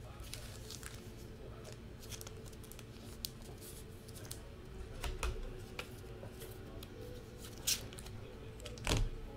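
Trading cards and their packaging being handled: scattered light clicks and rustles, a few sharper clicks about five seconds in and again near the end, over a faint steady hum.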